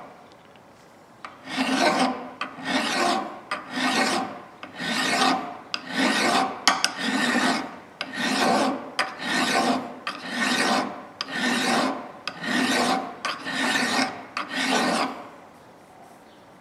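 Hand file rasping back and forth across a forged steel hatchet head held in a vise, in regular strokes of about one or two a second, cleaning old paint off the metal. The strokes start a little over a second in and stop shortly before the end.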